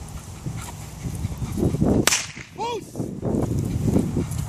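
A single sharp crack about two seconds in, like a whip crack or a blank shot, followed by a brief high call that rises and falls.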